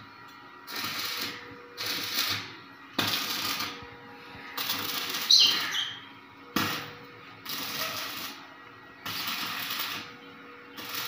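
Stick (arc) welding: the electrode's arc crackles and sizzles in about seven short bursts, each a second or less, with brief gaps between, as a steel tube frame is welded. A steady faint hum runs underneath.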